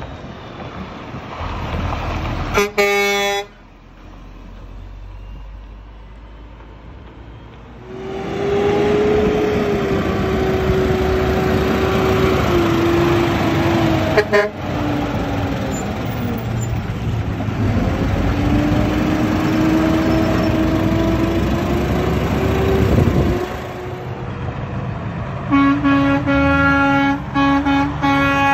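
Heavy trucks passing with air horn honks: a short horn blast about three seconds in, then a Mack concrete mixer truck's diesel engine running loud for about fifteen seconds with a long tone that wavers in pitch. Near the end come several short chord-like air horn blasts from an approaching Freightliner Cascadia semi tractor.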